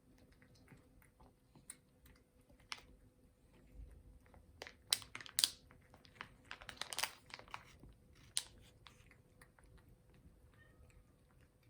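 A cat chewing crunchy treats: irregular crunches and clicks, loudest around the middle.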